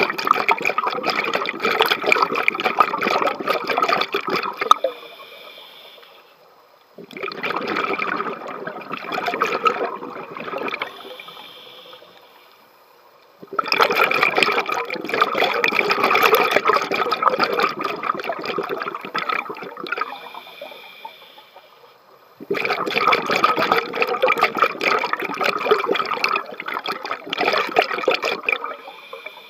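Scuba diver's regulator exhaust bubbling as the diver breathes out, four long exhalations of several seconds each, with quieter pauses between them while the diver breathes in.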